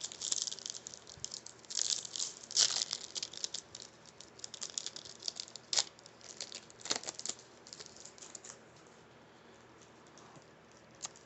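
Trading-card pack wrapper being torn open and crinkled, with the cards handled and shuffled: a run of quick crinkling and clicking sounds that thins out after about eight seconds.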